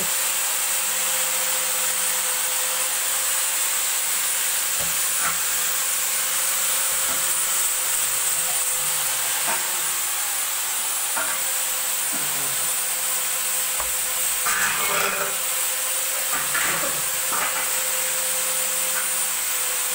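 Light metallic knocks and clanks as square steel tube pieces of a window-grille frame are handled and laid against each other on a concrete floor, a few at a time and busiest near the end. Under them runs a steady electrical hum and hiss.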